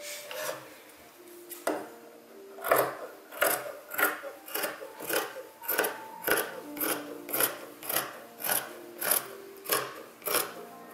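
Large fabric shears cutting through washed linen in a long run of even snips, about fourteen cuts at under two a second, starting a couple of seconds in.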